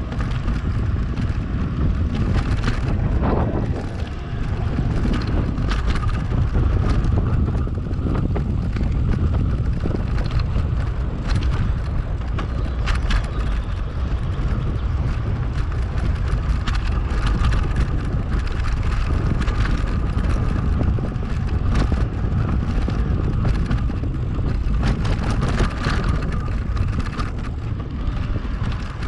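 Electric mountain bike on the move: wind rushing over the microphone with a steady low rumble, and frequent short rattles and clicks from the bike.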